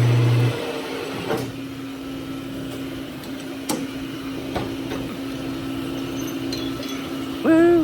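Machine-shop motor hum while a part is being worked. A loud low hum cuts off about half a second in, and a steadier hum runs on under a few light clicks and knocks. A short wavering tone comes near the end.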